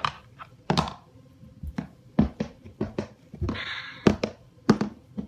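Plastic Breyer model horse knocked and tapped on a wooden floor: a string of irregular thunks and taps, with a short rustle about three and a half seconds in.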